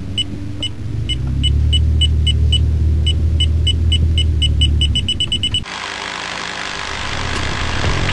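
Film-countdown sound effect: short, high ticks about three a second that speed up toward the end, over a low rumble that swells and then fades. About five and a half seconds in it cuts abruptly to a dense, hissy wash of sound.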